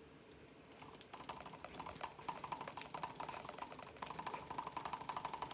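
Computer mouse button clicked very rapidly, about eleven clicks a second, starting about a second in: a fast, even run of light plastic clicks during a click-speed test.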